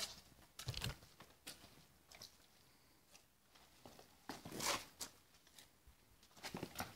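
Faint footsteps on wet stone paving with rustling of clothing and a tactical vest, scattered small clicks, and a louder rustle about four and a half seconds in.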